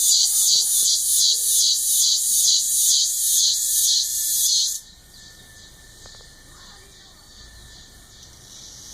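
Cicadas singing: a loud, high-pitched buzz pulsing about two to three times a second that cuts off suddenly about five seconds in, leaving a fainter buzz that swells again near the end.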